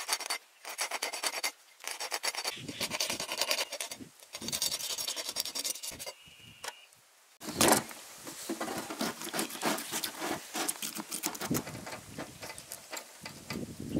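A large whole catfish being scraped clean, in fast rough rasping strokes that come in runs. About halfway through there is a short pause and a single sharp knock, then the scraping goes on more quietly.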